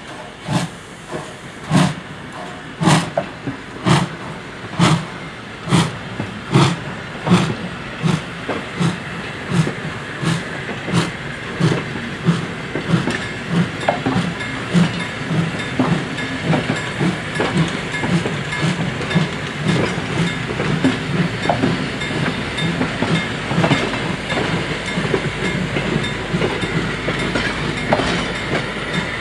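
Hr1 Pacific steam locomotive pulling away: sharp exhaust chuffs, about one a second at first and coming quicker as the train gathers speed. The chuffs grow fainter in the second half as the sound of the coaches rolling past on the rails takes over, with clicks from the wheels.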